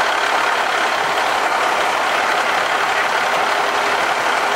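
Fire engine's diesel engine idling with a steady, unchanging drone.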